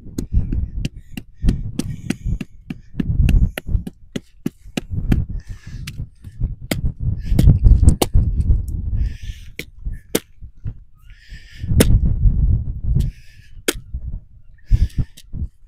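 Tent pegs being hammered into hard ground: a string of sharp, irregular strikes, about two a second, as the pegs resist going in. Wind buffets the microphone throughout.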